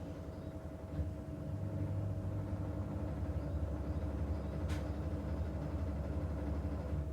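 Washing machine running: a steady low hum and rumble with a few constant tones, a small knock about a second in, and a brief hiss about four and a half seconds in.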